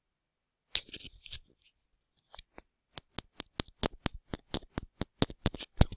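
A short scratchy rustle just under a second in, then a quick, even run of sharp taps, about four a second, growing louder toward the end, close to the microphone.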